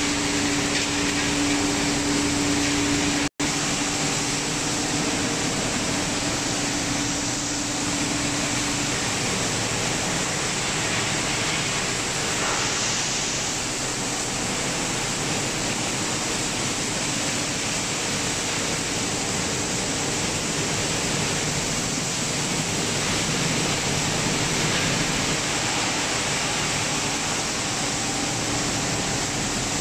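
Steady rushing noise of a rigid-plastic washing and recycling line's machinery running, with a low hum over roughly the first nine seconds.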